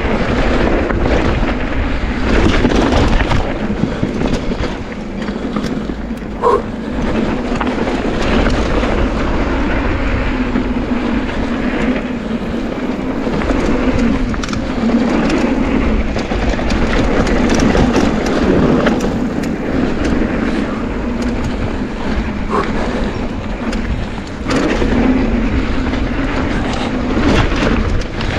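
Mountain bike riding fast down a bike-park trail: tyres rolling over dirt and gravel with constant rattling and clatter from the bike over bumps, under a steady rumble of wind noise.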